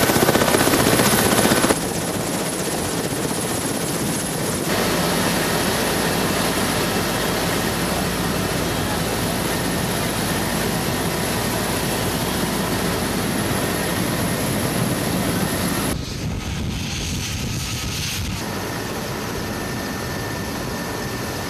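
Large transport helicopter running with its rotors turning: a steady, loud rotor and turbine noise that changes abruptly in level and character a few times.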